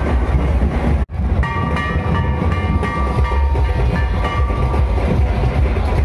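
Large bass drums beaten in a steady rhythm by a street band, with a crowd around. The sound cuts out briefly about a second in, and from about a second and a half to five seconds a long high note is held over the drumming.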